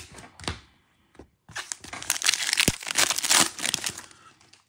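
Prizm basketball card pack being torn open, its plastic wrapper crinkling in a dense crackle from about a second and a half in, fading out near the end. A few sharp handling clicks come at the start.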